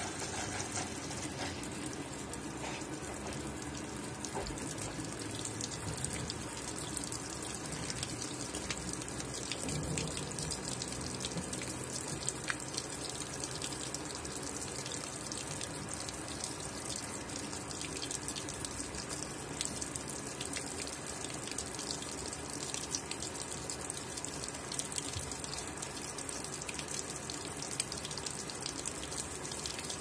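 Consul top-load washing machine filling: a steady stream of water runs and splashes into the tub onto the clothes, with fine spattering ticks throughout.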